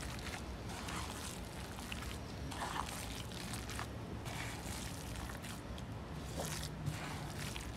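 Gloved hands squishing and kneading a moist crab-meat and breadcrumb stuffing in a bowl: irregular soft wet squelches and scrapes.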